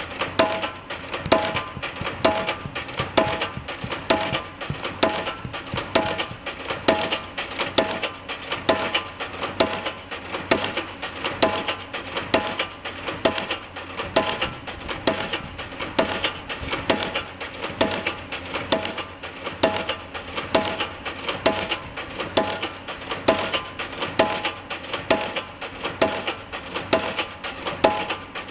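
Pile-driving hammer striking a pile in a steady rhythm: a continuous run of sharp, ringing metallic clangs, a little under two blows a second.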